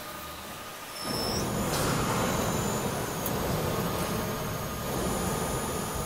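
Cable tray roll forming line running, with steel strip feeding through the punching station as it punches the joint holes. A steady mechanical running noise comes in about a second in and holds.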